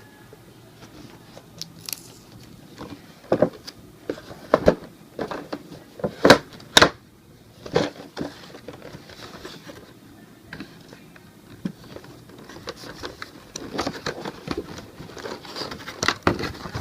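Toy packaging being opened by hand: a cardboard box and its inner packaging handled and pulled apart, with irregular sharp clicks and crackles, thickening into steady rustling near the end.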